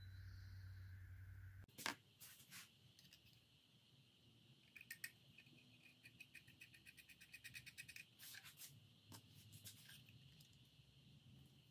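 Near silence with faint clicks and a quick run of light ticks: an exhaust gasket being handled and set against the aluminium cylinder head.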